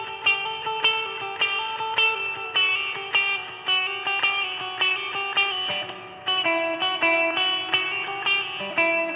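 Cort G300 Pro electric guitar played through a Fender Champion 20 amp: a melodic line of picked single notes, several a second. The playing thins out briefly about six seconds in, then carries on.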